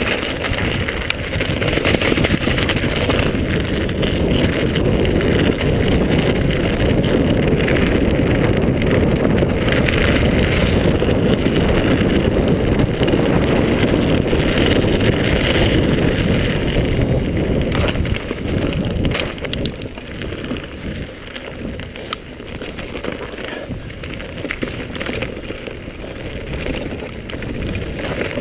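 Wind buffeting the microphone and a mountain bike's tyres rolling and rattling over a dirt trail at downhill speed. It eases off about two-thirds of the way through, with a few sharp knocks.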